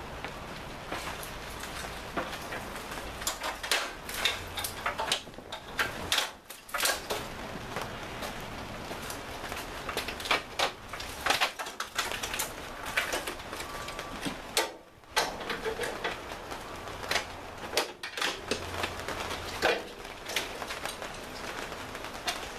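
Irregular light clicks, knocks and rattles of wiring and hoses being handled and moved about in a car's engine bay, over a low background rumble.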